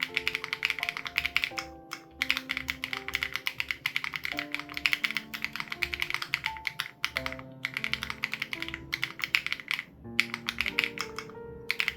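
Rapid typing on an SPM AL87B mechanical keyboard with BSUN Raw switches and its sound-dampening foam removed, with short pauses about two seconds in, near seven seconds and around ten seconds. Background music with held notes and a steady low beat runs underneath.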